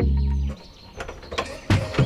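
Background music with a steady bass that cuts off about half a second in, followed by a few light clicks and taps.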